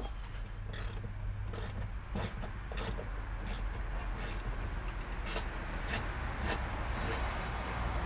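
Scattered clicks and light knocks of plastic and metal as the fuel flap lock solenoid is unscrewed and worked loose by hand from behind the trim panel, over a steady low hum.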